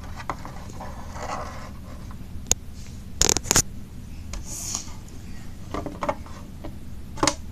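Handling noise of a plastic toy house and figures: rustling scrapes and a few sharp plastic clicks, the loudest a quick pair of clicks a little past the middle.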